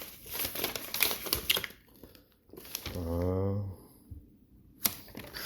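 Packaging crinkling and rustling in quick, dense crackles as a knife box is unpacked, settling after about a second and a half, with a single sharp click near the end.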